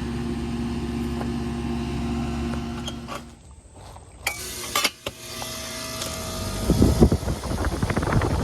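Outdoor AC condensing unit running with a steady electrical hum, which drops away about three seconds in. A couple of short knocks follow, then an irregular low rumbling noise builds toward the end.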